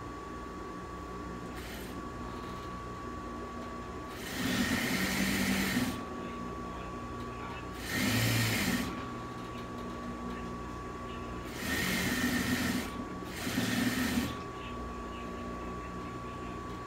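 Industrial sewing machine stitching fabric in four short runs of a second or two each, the last two close together, with a steady hum between runs.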